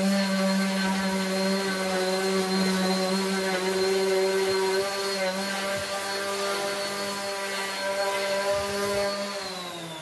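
Random orbital sander running steadily as it sands the face of a willow cricket bat. Near the end it is switched off and its pitch falls as the motor winds down.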